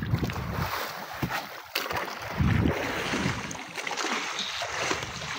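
Wind buffeting the microphone and sea water washing against a wooden outrigger boat, with one sharp knock a little under two seconds in as a large tuna is hauled aboard by rope.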